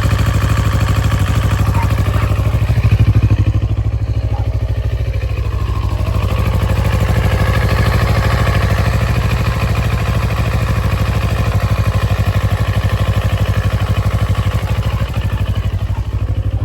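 CFMoto CL-X 700's parallel-twin engine running steadily, with a brief slight rise about three seconds in.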